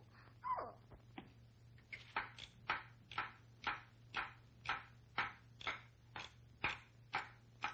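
Cartoon sound effect of wooden toy soldiers' footsteps: sharp, evenly spaced knocks at about two a second in a marching rhythm, starting about two seconds in. A short falling glide comes just before.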